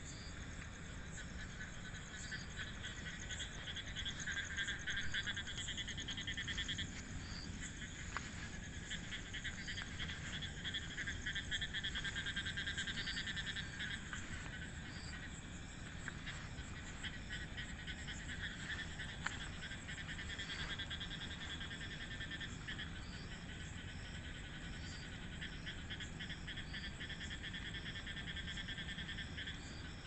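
Night chorus of frogs: rapid pulsing trills that swell and fade in stretches of several seconds, with a short high call repeating every second or two.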